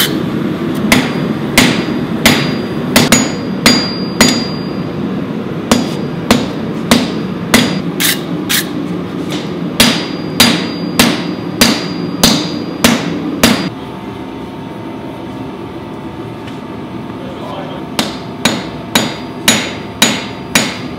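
Hand hammer striking a red-hot O1 steel knife blank on an anvil while forging the blade, about two blows a second, each with a short metallic ring, over a steady hum. The blows stop for a few seconds about two-thirds through, then start again.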